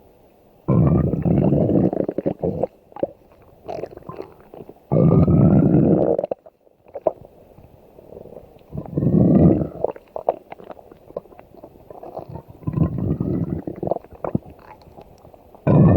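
A person's empty stomach growling: four long, loud rumbles a few seconds apart, each with rising gurgling squeaks on top, and small squelches and clicks between them. Another rumble begins right at the end.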